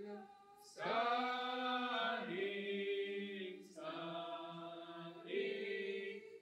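A small group of mixed voices singing a hymn refrain together, in sung phrases with a short breath about half a second in and another just before four seconds.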